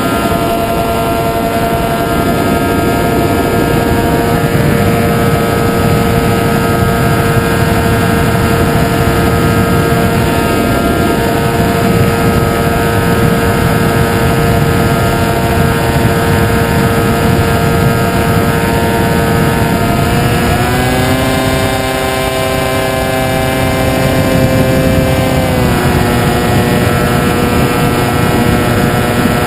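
Model airplane's motor and propeller running steadily in flight, a droning whine over a rushing noise. About two-thirds of the way through the pitch shifts with a throttle change for about five seconds, then settles back.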